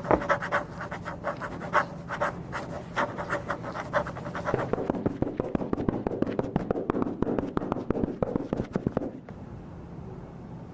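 Dense, irregular crackling and scratching clicks, stopping abruptly about nine seconds in and leaving a low steady hum.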